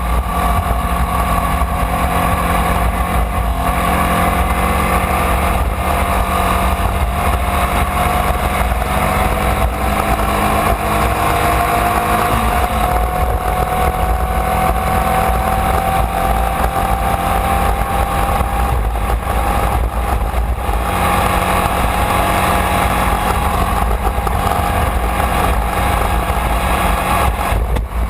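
Formula Vee's air-cooled Volkswagen flat-four engine running hard at race speed, heard from on board, its pitch climbing slowly and steadily for most of the stretch, over a constant rushing noise.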